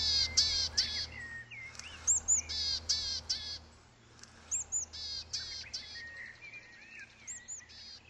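Recording of willow tit calls played back from a phone to lure the birds in. The same phrase comes four times, every two to three seconds: two thin high notes, then three or four harsh, buzzy notes.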